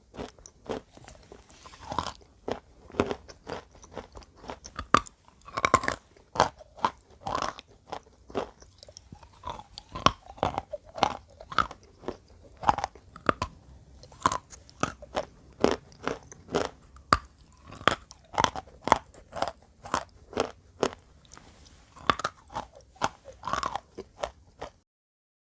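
Wet chalk being bitten and chewed close to the microphone: a rapid, uneven series of crisp crunches that cuts off suddenly near the end.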